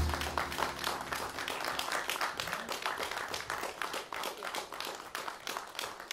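Audience applauding right after the band's final note stops, the clapping thinning and growing quieter toward the end.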